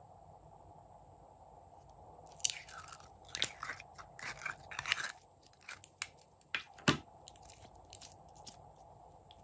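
Clear glitter slime being pulled and scooped out of a plastic tray by hand: sticky crackling and clicking starts about two seconds in, goes on in a dense run for about five seconds with one sharp click near the end of it, then thins to a few scattered clicks.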